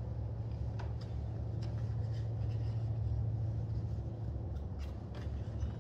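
Hands rubbing and smoothing a sticker's paper onto a jet ski hull, making faint scattered rustles and ticks over a steady low hum.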